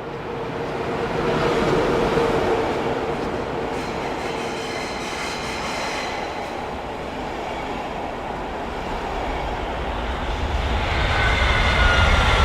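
High-speed train running on the rails: a steady rushing rumble, with a slowly falling whine and a rise in loudness near the end.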